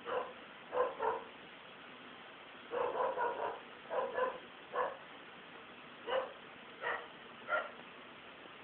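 A dog barking: about a dozen short barks, irregularly spaced, some coming in quick runs of three or four.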